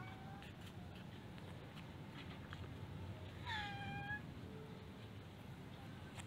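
A cat meows once, a short call sliding slightly down in pitch, about three and a half seconds in, over a faint steady background hiss.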